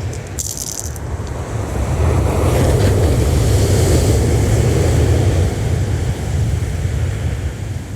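Sea waves breaking on the shore, with a surge of surf building about two seconds in and easing after about five seconds. Heavy wind rumbles on the microphone throughout, and there is a brief crackle about half a second in.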